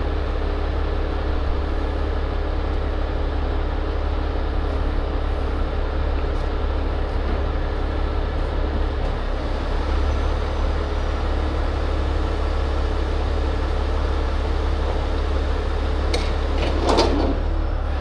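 A 75-ton rotator tow truck's diesel engine running steadily at idle, a deep even rumble with a faint hum over it. A brief higher sound that bends in pitch cuts in near the end.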